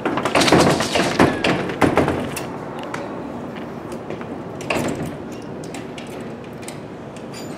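A door being shoved and its handle rattled without the door opening. There is a dense run of thumps and rattles over the first two seconds, then a shorter burst about five seconds in.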